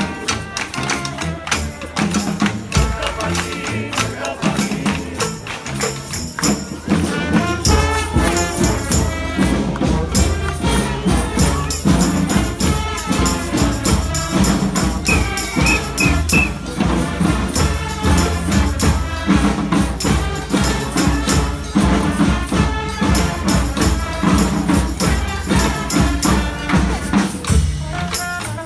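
Street brass band playing a salsa tune, horns over a steady beat of drums and tambourine. The band gets fuller and louder about eight seconds in as the low brass and bass drum come in.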